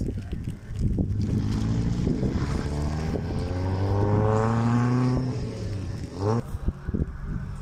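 Rally car engine accelerating hard, its pitch climbing steadily for several seconds as it gets louder, then a gear change and a short rising rev near the end.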